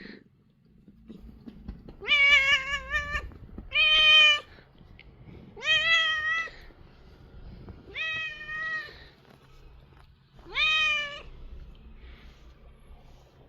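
Korean shorthair cat meowing five times: drawn-out calls of about half a second to a second each, with a wavering pitch. These are the strange sounds it makes while being squeezed and massaged.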